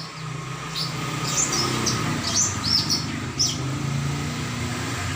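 Cucak ijo (leafbird) singing a run of quick, sweeping chirps for about three and a half seconds, over a steady low hum.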